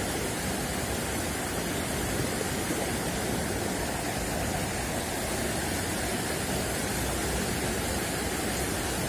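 Steady rush of water flowing in an irrigation ditch, an even hiss that holds unchanged throughout.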